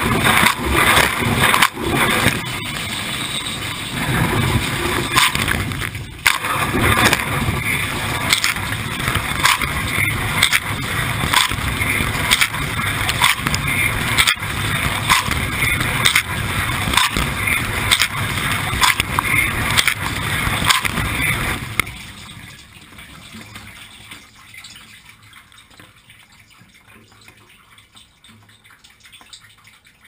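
Water jets spraying and splashing inside a Bosch Exxcel dishwasher during its wash cycle, beating against the dishes and door in regular pulses about once a second. The spraying cuts out about two-thirds of the way through, leaving only faint dripping.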